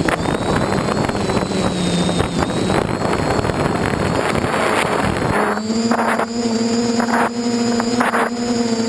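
DJI F450 quadcopter's motors and propellers running steadily, picked up by the GoPro mounted on the drone. Heavy wind buffeting on the microphone covers the motors for the first five seconds or so. After that it drops away and the steady motor drone comes through clearly.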